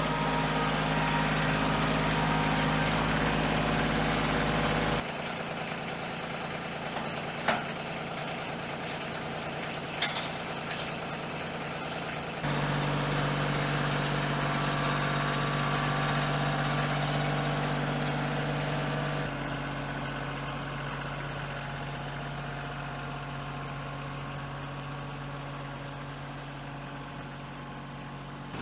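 An engine running at a steady speed, its tone changing abruptly about five seconds and about twelve seconds in, with a few sharp knocks around the middle.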